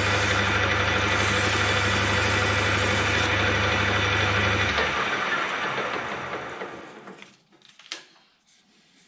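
Metal lathe running with a strip of emery paper held against the spinning round bar to clean it up. The hiss of the paper stops about three seconds in, then the motor is switched off about five seconds in and the chuck coasts to a stop.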